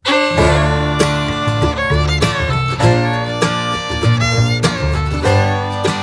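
Upbeat bluegrass-style music: fiddle over plucked guitar, with a bass line moving note to note; it starts abruptly at the very beginning.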